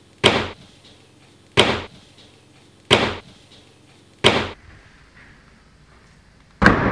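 Five loud, sharp hits, each with a short fading tail: four evenly spaced about every second and a third, then a longer pause and a fifth near the end.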